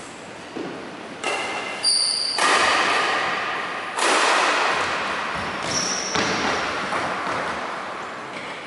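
Badminton rally in a large, echoing hall: a string of sharp racket strikes on the shuttlecock, each ringing on in the room, with brief shoe squeaks and footfalls on the wooden court.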